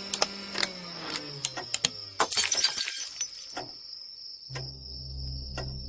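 Sound-effect track: a flurry of sharp crackling, glass-like breaking clicks while a low hum slides down in pitch and dies away. About four and a half seconds in, a steady low hum starts, with single sharp ticks over it.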